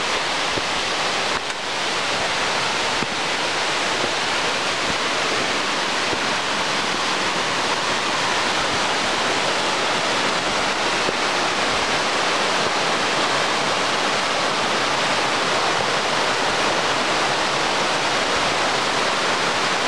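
Mountain brook cascade: water falling steadily and loudly over steep rock ledges in an even, unbroken rush. This is Beaver Brook's cascades.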